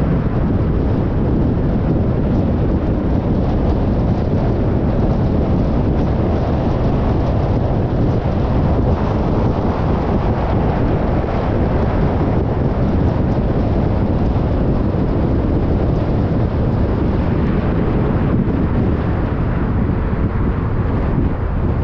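Steady, deep road and wind noise of a car driving along, tyres on the pavement and air rushing past the microphone.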